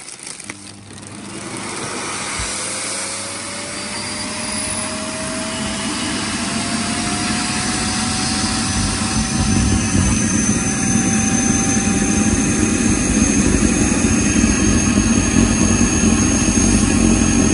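Vacuum cleaner drawing the air out of a vacuum storage bag packed with stuffed toys through the hose at the bag's valve. The motor's whine climbs slowly in pitch and grows louder as the bag collapses and the airflow is choked off, and a thin high whistle joins about halfway.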